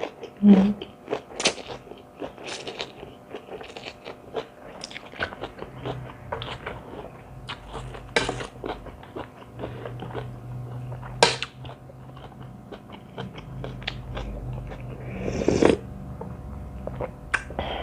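Close-up chewing and biting of a rice-noodle seafood salad with raw yard-long beans: repeated sharp crunches and wet mouth clicks.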